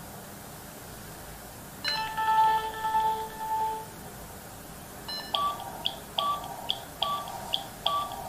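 Silverlit Macrobot toy robot's electronic sounds as it enters guard mode: a held electronic tone for about two seconds starting about two seconds in, then rapid short beeps, about two and a half a second, from about five seconds in.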